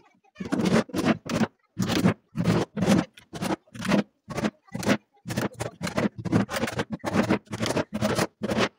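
Rhythmic scraping strokes, about two a second, of a hand tool working wood.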